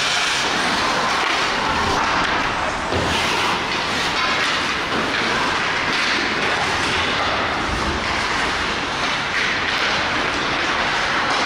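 Steady noise of ice hockey play in an indoor rink: skate blades scraping and carving the ice, with occasional knocks of sticks and puck.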